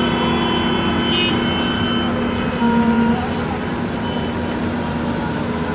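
Road traffic: vehicle engines running steadily in dense street noise, with a brief louder low tone about two and a half seconds in.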